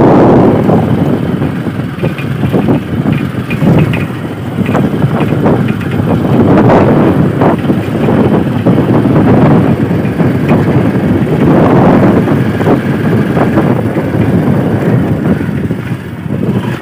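Motorcycle riding along a dirt track: wind buffets the microphone in uneven gusts over the running engine.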